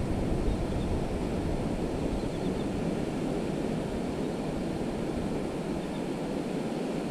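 Steady wash of ocean surf on the beach, with wind on the microphone.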